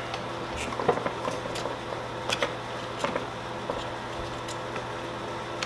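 Scattered light clicks and taps of hands working at the top of an Echo chainsaw's engine as the spark plug boot is pulled off the plug, over a steady low hum.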